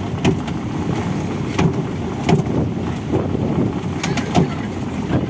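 Outrigger fishing boat's engine running steadily, with sharp knocks now and then.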